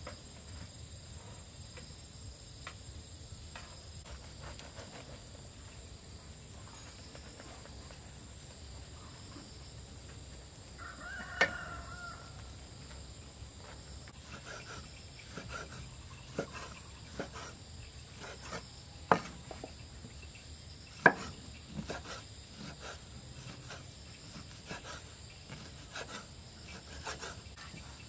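A chicken gives a short call about a third of the way in, over a steady high-pitched insect drone. Sharp knocks come in the second half, scattered and irregular, two of them loud.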